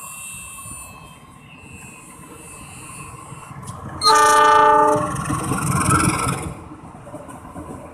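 Diesel passenger train's locomotive horn sounding one loud blast about a second long, about four seconds in, as the train passes close by. The rumble of the engine and wheels follows and dies down near the end.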